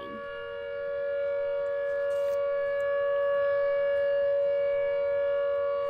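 Tornado warning siren sounding a steady two-pitch tone that holds without rising or falling, swelling slightly in the first couple of seconds; it signals a tornado warning.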